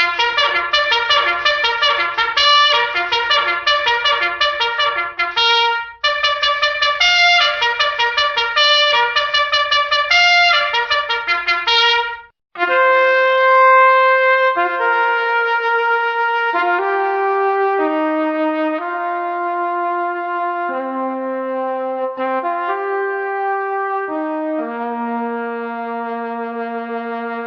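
Solo trumpet calls. First a fast call of rapidly repeated short notes, played as two phrases of about six seconds. After a brief break about twelve seconds in comes a slower tune of long held notes that step up and down in pitch.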